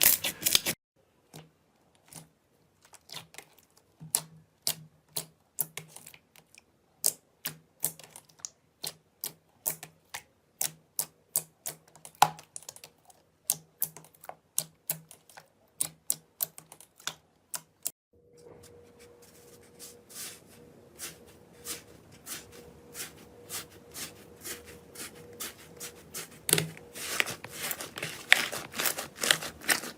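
Slime being pressed and squeezed, giving off sharp irregular clicking pops. About two-thirds of the way through the sound changes: the clicks come faster over a faint steady hiss.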